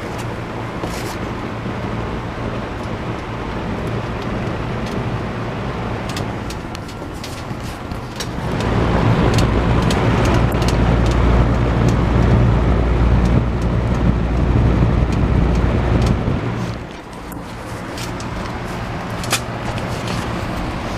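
Vintage 20-inch Robeson box fan running on its low speed: a steady whoosh of air with a motor hum. A louder low rumble swells in for several seconds in the middle, then fades back.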